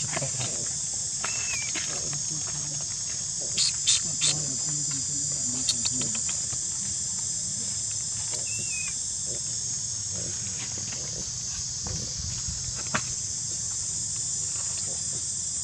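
Steady high-pitched chorus of insects, with three sharp clicks about four seconds in.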